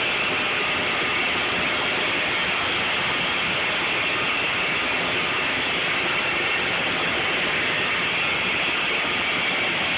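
Olive mill machinery running with a steady, even mechanical noise.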